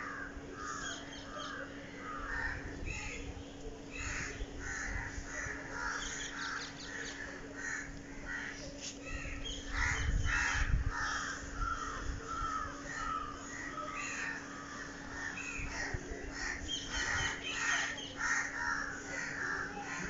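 Crows cawing over and over among other birds calling, many calls overlapping. A faint steady hum runs underneath, and a brief low rumble comes about halfway through.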